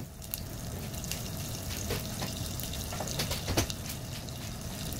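A pat of butter sizzling as it melts in hot olive oil in a saucepan: a steady low hiss with scattered crackling pops.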